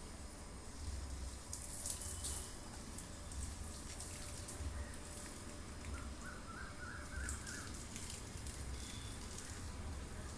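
Running water with a steady hiss that surges now and then, under a low rumble of wind on the microphone; a bird gives a short run of chirps just past the middle.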